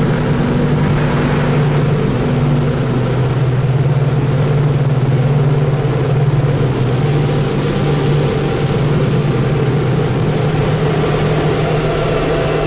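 Noise music: a loud, steady droning wall of sound, a low humming tone over dense hiss, shifting slightly in pitch now and then.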